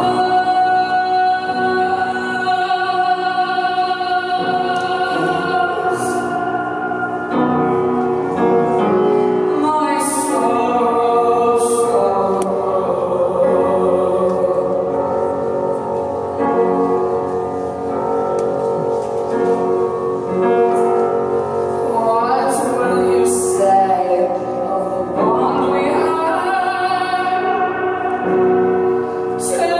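A woman singing live into a microphone, holding long sung notes over piano accompaniment.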